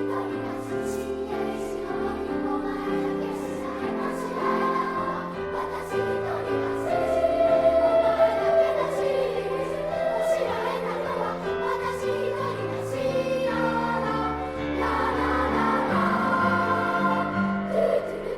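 Children's choir singing a Japanese choral song in three parts, with long held notes and a louder passage near the middle.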